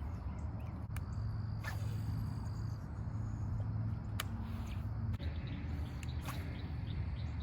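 Outdoor pond ambience: a steady low hum under faint high chirping of insects or birds, with a few sharp clicks.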